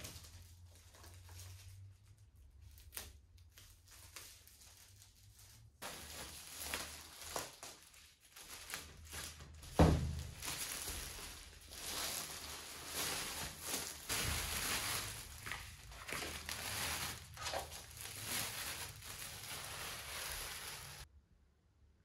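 Clear plastic wrap being pulled off a large stretched canvas and crumpled, crinkling and rustling, with one sharp thump about ten seconds in. The first few seconds are quieter, with only a few light knocks.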